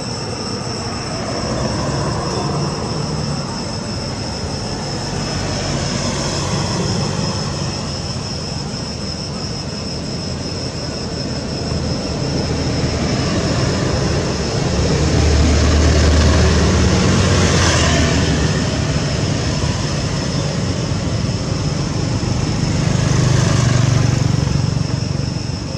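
Steady rumbling background noise that swells louder twice in the second half, with a thin steady high whine running above it.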